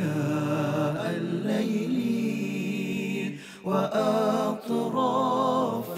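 Arabic supplication sung melodically in a chanting style, with long held, wavering notes and a short break about three and a half seconds in.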